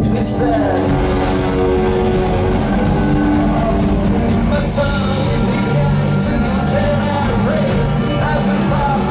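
Loud live country-rock band playing with singing, banjo and guitars on stage.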